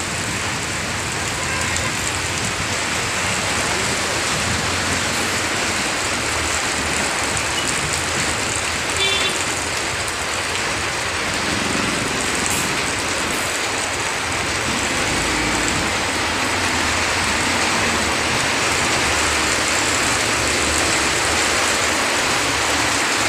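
Heavy rain falling steadily on the street, with traffic passing through the standing water: buses, cars and motorbikes splashing by on the wet road.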